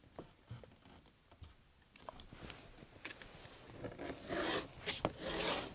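Sharp knife blade drawn through thick tooling leather along a metal straight edge: a few faint ticks, then two scraping cutting strokes near the end, each about half a second long.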